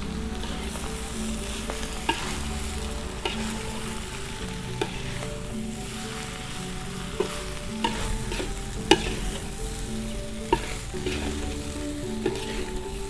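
Fried rice sizzling in a metal wok while a metal spatula stirs and turns it, with sharp scrapes and clinks of the spatula against the wok every second or two. The loudest clink comes about nine seconds in.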